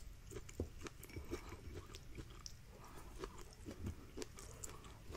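A person chewing a mouthful of food, faint, with short soft mouth clicks scattered throughout.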